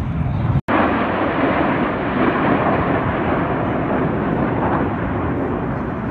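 Jet engine noise from a formation of fighter jets flying past: a loud, steady rushing sound with no distinct tones. It cuts out for an instant less than a second in, then comes back a little louder.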